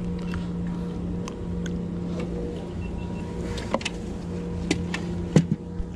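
A small motor running with a steady low hum. There are a few sharp knocks and clicks past the middle as a fish is handled into a plastic cooler.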